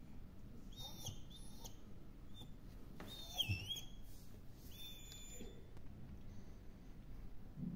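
Small dog whining in about four short, high-pitched whimpers, the longest near the middle dipping in pitch and rising again. The dog is whining at the door while it waits for its owner to come home.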